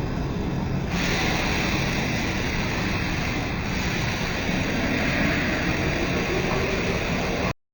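Matsuura MC-510V Tiger CNC vertical machining center running: a steady, noisy machine whir that turns brighter and hissier about a second in, then cuts off abruptly near the end.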